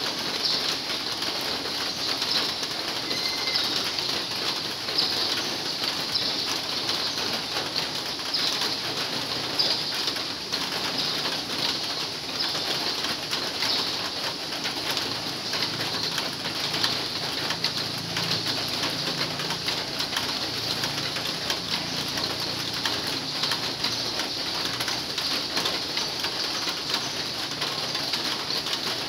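Heavy rain falling steadily, a dense even patter heard from inside a large hall, with a faint low cooing in the middle stretch.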